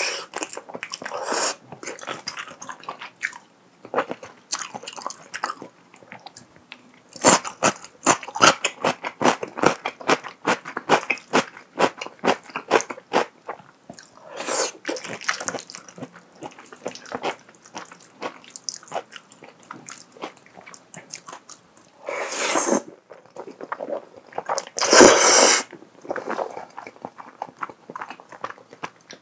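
Close-miked mouth sounds of eating creamy fettuccine pasta with shrimp and broccoli: wet chewing full of small smacking clicks, with a few louder, longer slurps of noodles, one around the middle and two near the end.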